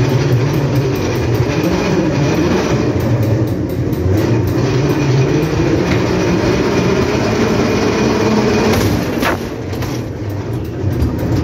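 Ghost train car rolling along its track with a steady rumble and rattle, with a single sharp knock near the end.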